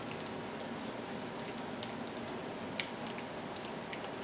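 Silicone spatula stirring a sticky mix of crumbled tofu, peanut butter and maple syrup in a glass bowl: scattered small wet clicks and ticks, one sharper about three seconds in.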